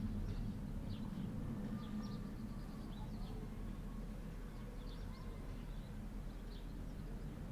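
Outdoor ambience: small birds giving short, scattered chirps over a steady low rumble.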